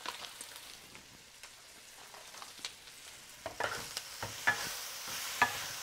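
Diced Chinese sausage and cured meat sizzling in a wok, stir-fried with a spatula from about halfway in. Scraping strokes and a few sharp knocks of the spatula against the pan sound over the sizzle.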